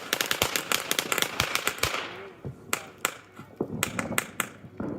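Fireworks crackling: a dense run of rapid sharp pops for about two seconds that thins out, followed by a few separate loud cracks near the end.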